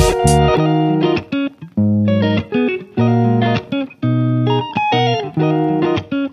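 Background music led by plucked guitar notes over a bass line, in short phrases with brief pauses between them.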